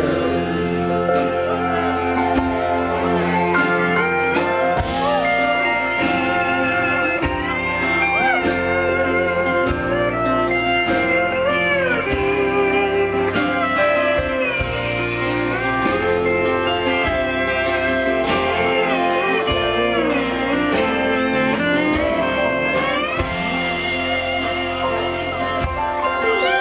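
Live rock band playing an instrumental break: a lead guitar solo with notes gliding up and down, over bass and drums.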